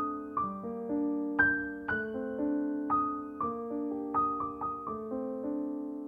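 Slow, soft solo piano background music: a melody of struck notes, about two a second, over held lower chords.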